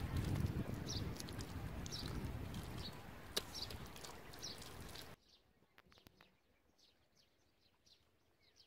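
A bird chirping in short, repeated high calls, over a loud rough rustling noise with a few sharp clicks. The rustling cuts off suddenly about five seconds in, leaving the chirps and faint clicks.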